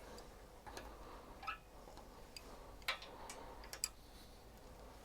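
Faint, irregular light clicks and taps, about half a dozen, of small metal parts being handled while working on a trike's front brake cable.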